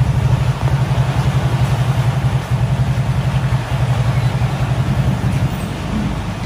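Engine running steadily at idle: a loud, even low rumble with a fast pulse.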